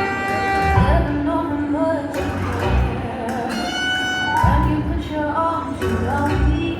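Live band playing: keyboard, drums and violin, with a kick drum thumping every couple of seconds under held melody notes.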